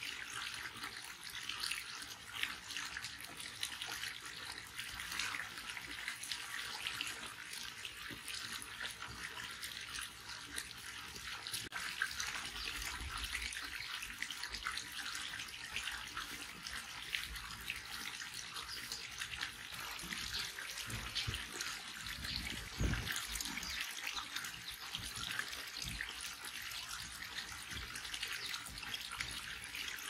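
Steady running water with a fine, even splashing hiss. A few low rumbles come in about two-thirds of the way through.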